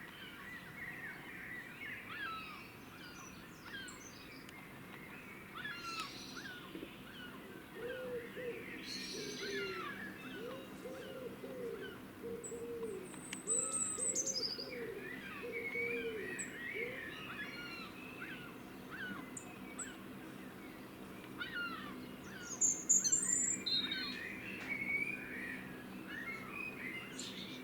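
Birds calling: many short chirps throughout, with a few high trills, and a low cooing call repeated about eight times in the middle, typical of a pigeon.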